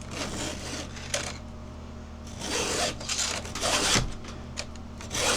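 Chainsaw chain being hand-filed with a Husqvarna file guide on 3/8 chain: several short file strokes across the cutters, metal scraping on metal, with a quick run of three strokes about two and a half seconds in and another near the end.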